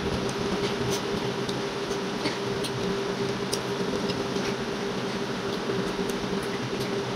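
Eating by hand: small scattered clicks and smacks of chewing and fingers working rice and chicken curry, over a steady hum in the room.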